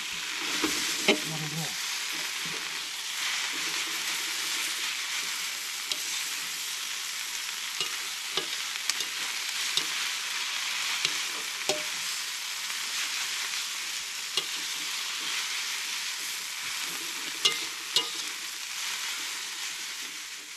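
Water spinach stir-frying in a pan: a steady sizzle, with the occasional click and scrape of a utensil against the pan as it is stirred.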